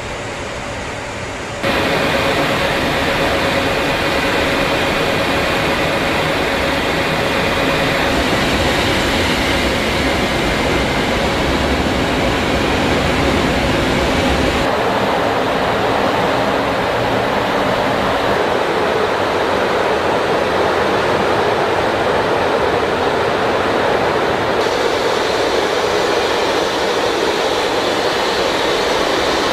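Steady noise of jet engines and rushing air inside a B-52 bomber's crew compartment in flight. It jumps louder about two seconds in and changes tone abruptly a few times.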